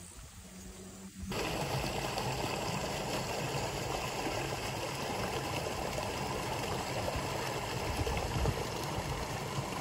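Steady rush of flowing water, an even noise that starts suddenly about a second in after quieter outdoor ambience.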